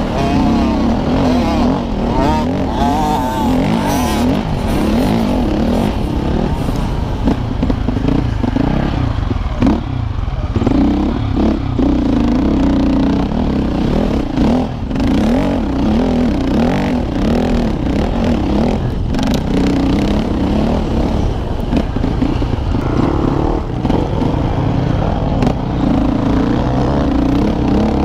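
KTM 450 EXC's single-cylinder four-stroke engine heard onboard, revving up and down again and again as the rider works the throttle and shifts gears, with brief dips in the revs about ten and fifteen seconds in.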